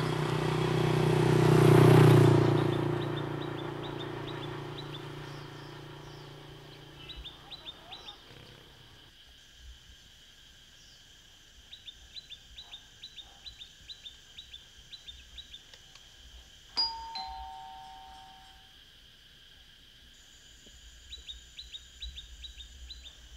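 Two-tone doorbell chime, a ding then a lower dong, each ringing about a second, about three-quarters of the way through, right after the click of the bell button. Birds chirp in short quick runs throughout, and at the start a loud swell of sound peaks about two seconds in and slowly fades.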